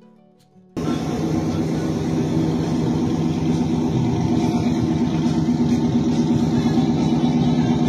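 A 1956 Ford F-100 pickup's swapped-in Buick V8 engine running steadily. It cuts in abruptly about a second in.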